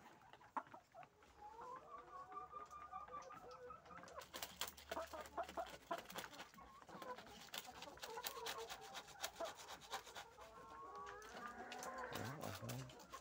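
Caged laying hens clucking and calling. Many small sharp taps and clicks join in from about four seconds in.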